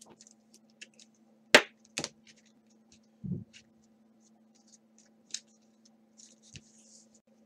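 Hands handling trading cards and a plastic card holder: scattered clicks and taps, one sharp click about one and a half seconds in, and a soft rustle of cards being flipped through near the end. A faint steady hum sits underneath.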